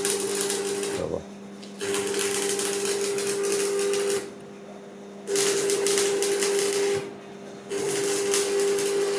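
Electric arc welding: the arc crackles and buzzes in bursts about two seconds long, struck four times with short pauses between, over a steady electrical hum.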